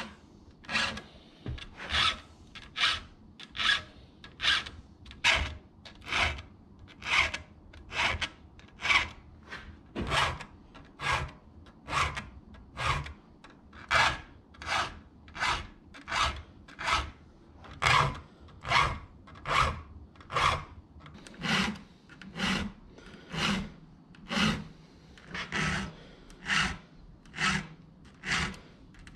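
Round file rasping across the cutting teeth of a chainsaw chain held in a bench vise, being sharpened by hand tooth by tooth. The strokes come steadily and evenly, a little over one a second.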